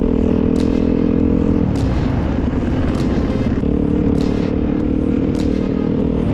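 A small motorbike engine running at a steady pace under a constant noisy rush, its hum dropping away for about two seconds in the middle.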